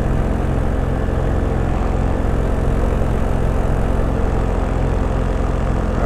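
Paramotor engine and propeller running steadily at cruise in flight, a constant even drone with no change in pitch.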